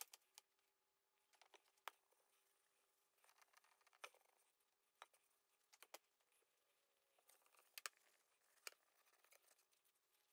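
Near silence, with faint scattered light clicks and soft rustling from gloved hands wiping stain onto small wooden blocks with a rag.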